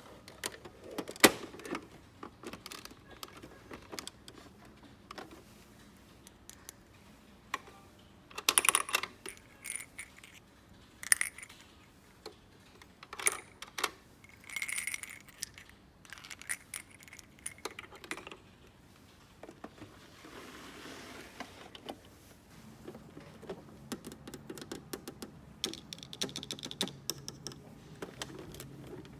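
Small plastic toy pieces being handled and set down: irregular clicks, taps and light rattles, with a brief soft rustle about twenty seconds in.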